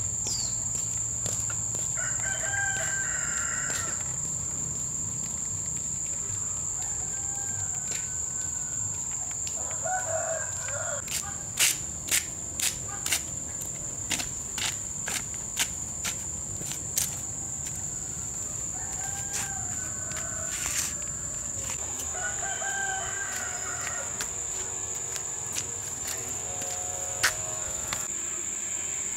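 A rooster crowing several times, each crow lasting a second or two, over a steady high-pitched insect drone. About halfway through comes a run of sharp clicks.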